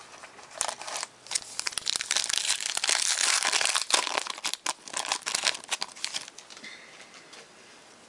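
Shiny foil wrapper of a 2011 Totally Certified football card pack crinkling as it is handled and torn open by hand. The dense crackle lasts about five seconds and dies away about six seconds in.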